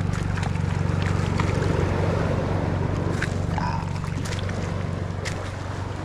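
Steady low drone of a distant boat engine, fading away in the last second or two, with scattered light clicks.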